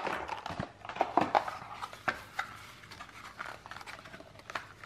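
Cardboard knife packaging being handled: scattered rustles and light taps as a folding knife is worked out of its cardboard insert.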